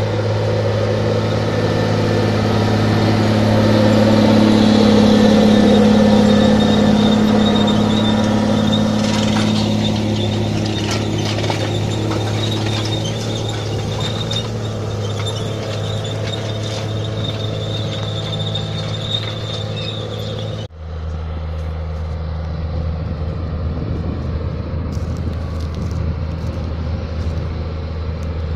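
Case IH Steiger 500 HD four-wheel-drive tractor's diesel engine running steadily under load while pulling a Tiger-Mate 200 field cultivator past, loudest a few seconds in, with a thin high whine over the engine. About two-thirds of the way through there is an abrupt cut, and the engine is then heard farther off at a lower pitch.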